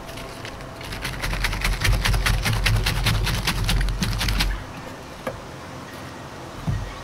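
Cabbage being shredded on a mandoline slicer: a quick run of crisp cutting strokes, several a second, as the cabbage is pushed back and forth over the blade. The strokes stop about four and a half seconds in, followed by a couple of single clicks.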